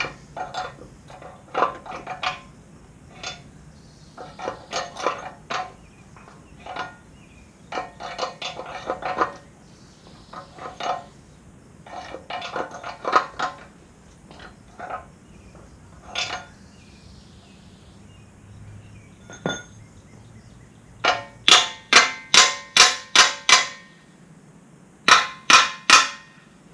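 Hammer blows on a steel pin, driving it through the backhoe quick-connect coupler; the pin is a very tight fit with its washer shims in place. The blows come in irregular clusters, then a fast run of about eight loud strikes near the end and four more just after.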